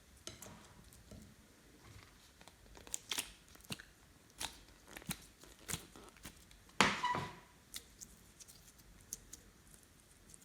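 Glossy slime being pressed and stretched by hand, making scattered sticky clicks and pops, with one louder squelch about seven seconds in.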